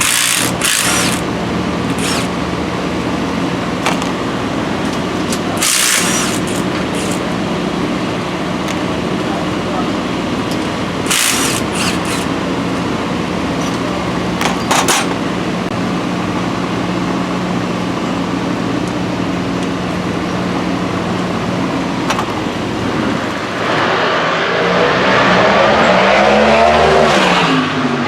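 Steady mechanical hum, with several short hissing bursts in the first half. Near the end a motor vehicle passes close by, louder and falling in pitch as it goes.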